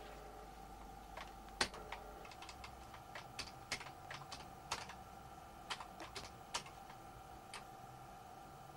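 Typing on a computer keyboard: faint, irregular key clicks, a few strikes louder than the rest, over a steady faint whine.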